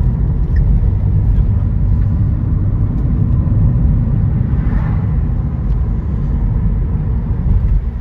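Wind buffeting the microphone outdoors: a loud, steady low rumble.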